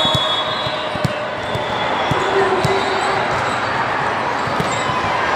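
Volleyball game in a gym: steady chatter of players and spectators, with a few sharp thumps of the ball striking hands or the floor.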